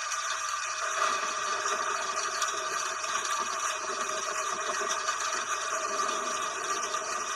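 Steady rain, an even hiss of falling water with no break; a lower layer of noise joins about a second in.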